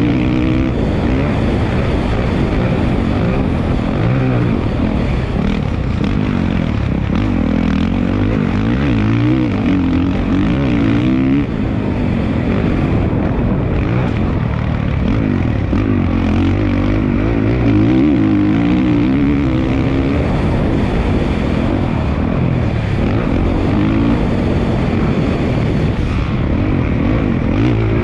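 Dirt bike engine ridden hard, revving up and falling back over and over with no pause.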